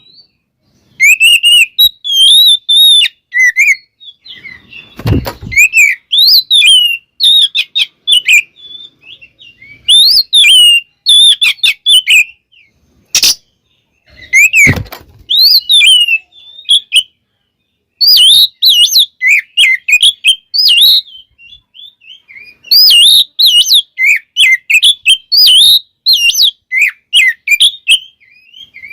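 Oriental magpie-robin (kacer) singing loudly in fast bursts of varied whistled and warbled phrases, full of mimicry, with short pauses between bursts. A couple of sharp clicks or knocks come in among the song.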